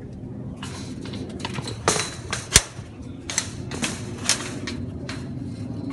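A run of irregular clicks and rustles as the phone is handled against a wire-mesh cage, with one sharp click about two and a half seconds in.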